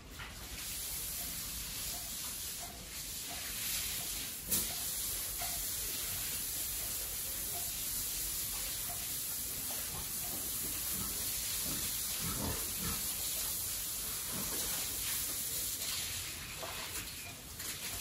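A pig grunting softly while it eats at its trough, over a steady high hiss. A single sharp click comes about four and a half seconds in.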